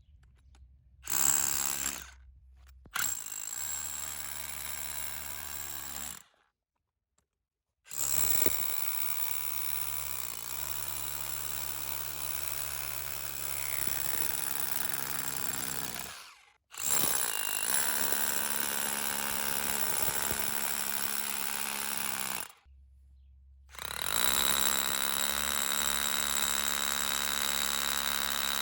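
Milwaukee M18 FUEL cordless SDS-plus rotary hammer running in several separate runs, the longest about eight seconds, broken by short silences.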